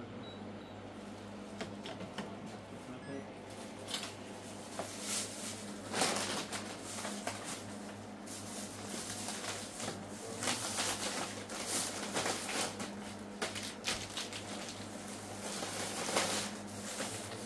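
Thin plastic bag rustling and crinkling as goods are handled and packed into it by hand, in irregular bursts, over a steady low hum.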